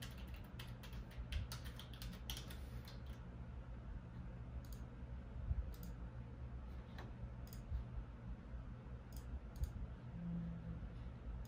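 Typing on a computer keyboard: a quick run of keystrokes in the first few seconds, then single clicks a second or so apart, over a low steady hum.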